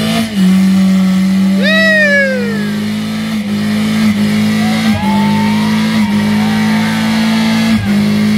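Fiat Grand Siena's engine held at steady high revs during a burnout, with a few brief dips. The tyres squeal, once rising and falling about two seconds in, then more thinly from about halfway through.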